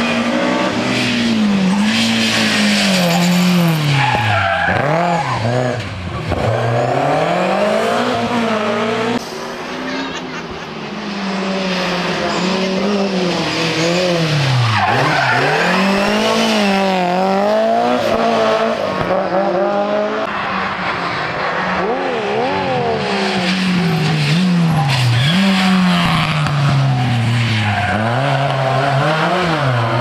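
Historic rally cars, a BMW E30 M3 among them, driven hard through hairpin bends: engines rev up, drop back at each gear change and corner, then climb again, over and over. The sound jumps twice as it cuts from one car to the next.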